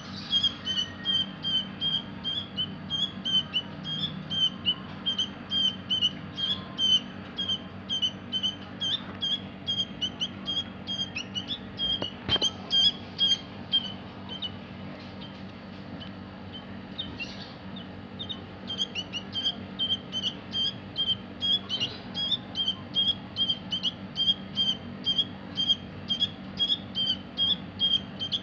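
Baby songbird chirping over and over in short, high cheeps, about two a second, with a pause of a few seconds midway: the calls of a chick fallen from its nest.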